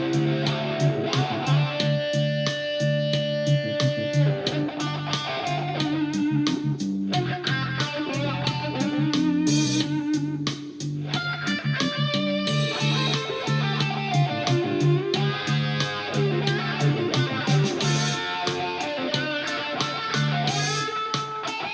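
Electric guitar playing a continuous run of rapidly picked notes over a steady bass line.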